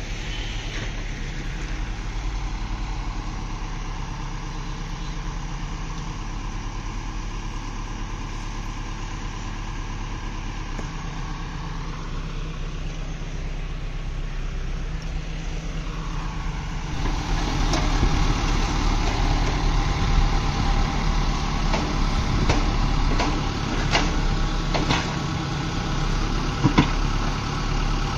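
JCB backhoe loader's diesel engine running steadily while it works the backhoe arm. About two-thirds of the way in the sound gets louder and fuller, with a few sharp knocks.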